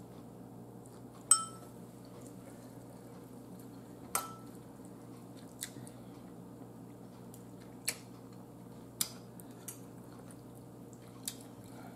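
Metal fork clinking against a bowl of noodles: a ringing clink about a second in, another around four seconds, then several lighter taps, over a steady faint room hum.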